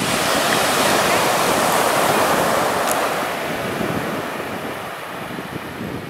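Small surf breaking and washing up a sandy beach. The rush is loudest in the first few seconds, then eases as the wash spreads and draws back.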